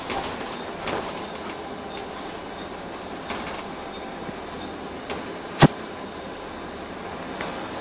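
Inside a Wright Eclipse single-deck bus: steady engine and running noise with small clicks and rattles from the fittings, and one sharp knock about five and a half seconds in.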